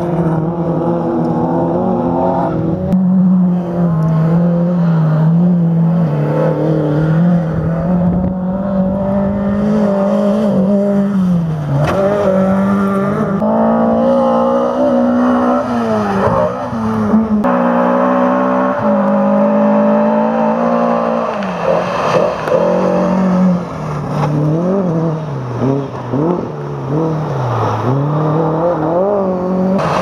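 Lada VFTS rally cars' four-cylinder engines revving hard at full attack, the pitch climbing and dropping over and over with gear changes and lifts. It is several passes joined by abrupt cuts.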